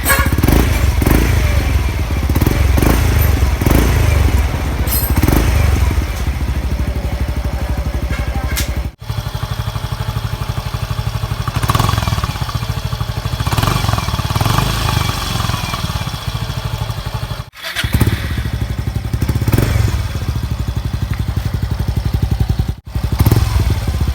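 Motorcycle engine running through an aftermarket Exos X6 exhaust pipe, idling with repeated short blips of the throttle. The sound breaks off abruptly three times where clips are joined.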